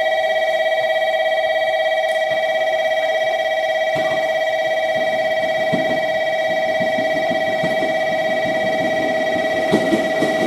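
Station platform electric bell ringing continuously as the train approaches, with the rumble of the arriving train rising underneath from about four seconds in.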